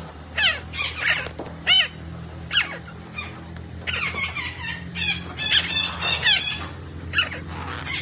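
Red-breasted parakeet giving about a dozen short, shrill calls, each sliding down in pitch, mostly in quick runs of two or three, over a faint steady low hum.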